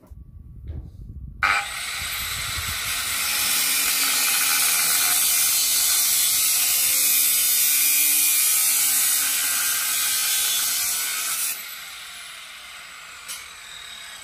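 Angle grinder working on steel tubing: a harsh, steady grinding hiss that starts abruptly and runs for about ten seconds, then the tool is switched off and winds down, its pitch falling.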